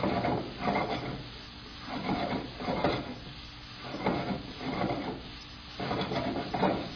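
Spatula scraping and turning rice in a hot pan, mixing it into fried rice, in repeated rough strokes about once a second.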